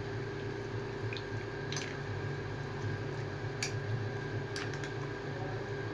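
A spoon stirring mutton chunks through a thick yogurt-and-spice marinade in a glass bowl: wet stirring sounds, with a few light clicks of the spoon against the glass, over a steady low hum.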